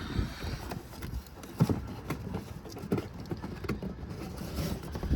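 Handling noise of a hood latch cable and twine being fished through the car: scattered taps, knocks and rustling, with a sharp knock about a second and a half in and a heavier thump at the very end.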